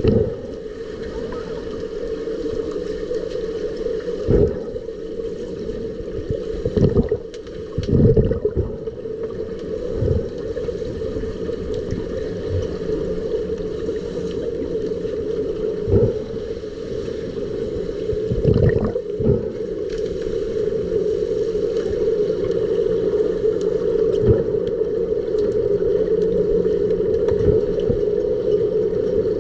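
Muffled underwater swimming-pool ambience, heard through a submerged camera: a steady hum with scattered knocks.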